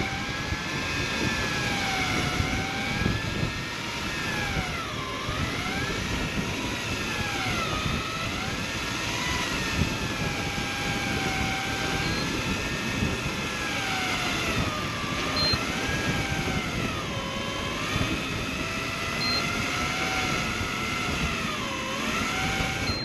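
Electric fishing reel winding line up from the bottom, a motor whine that dips in pitch and recovers every few seconds as the load on the rod rises and falls. Steady wind and sea noise beneath, and a few short high beeps in the second half.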